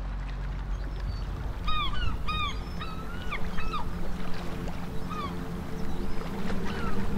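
Seabirds calling: a quick run of short, curved squawking calls about two seconds in, with a few scattered calls after, over a low steady hum.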